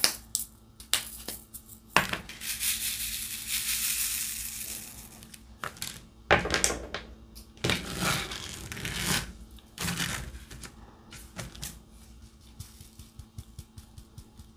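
Small resin diamond-painting drills rattling and clattering in a plastic tray as it is shaken: one long shake of about three seconds, then several shorter bursts, with scattered light clicks between.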